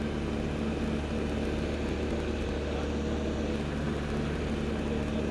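L-13 Vivat motor glider's piston engine and propeller running steadily at takeoff power just after lift-off, heard from inside the cockpit as a loud, even drone.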